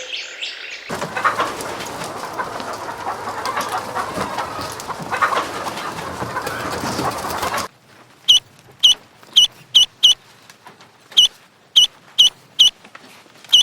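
A flock of chickens clucking, many overlapping calls, for about seven seconds. Then it cuts suddenly to a single bird giving a string of short, sharp chirps, about two a second.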